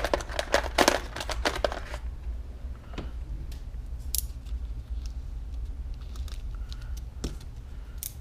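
Rummaging through a cluttered workbench drawer and handling plastic zip bags of capacitors: a quick run of clicks and rustles in the first two seconds, then scattered light clicks and crinkles. A steady low hum runs underneath.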